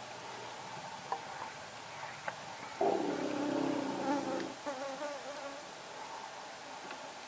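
Steady buzzing drone of insects. About three seconds in, a louder pitched sound starts abruptly and lasts nearly two seconds, then trails off into wavering tones.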